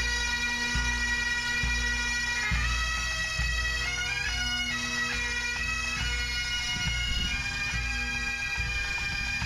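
Pipe band playing a tune: several Great Highland bagpipes sounding the melody over their steady drone, with a bass drum beating a steady pulse, a little more than once a second, underneath.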